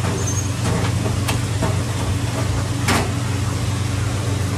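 A few light clicks and one short scrape of metal tongs on a ceramic plate, over a steady low mechanical hum.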